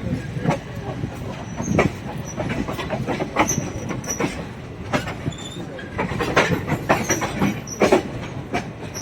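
Passenger express train running on the track, its wheels clattering and knocking irregularly over rail joints, with a few brief high-pitched wheel squeals.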